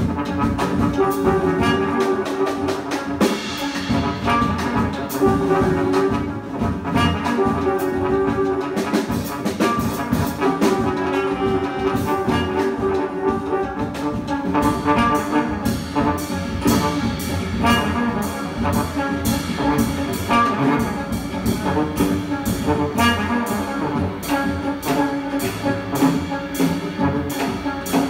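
Live brass jazz: trombone and trumpet playing held notes and phrases over busy drums.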